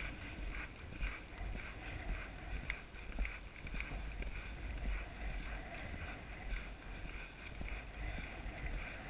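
Horse moving at a steady pace on grass, its hoofbeats coming as soft pulses about twice a second, with wind rumbling on the rider's microphone.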